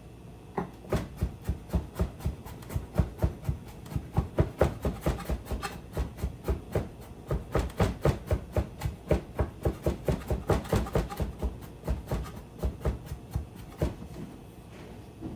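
Chef's knife chopping garlic and ginger on a wooden cutting board: a rapid, even run of knocks, about four to five a second, with a short break late on.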